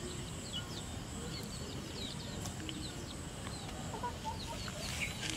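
Chickens clucking in the background, with short high chirps scattered throughout over a steady low background noise; a few lower clucks about four seconds in and a louder falling call near the end.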